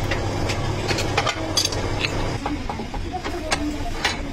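A metal lathe's motor humming steadily, cutting off about two and a half seconds in, with steel parts clinking and knocking as they are handled throughout.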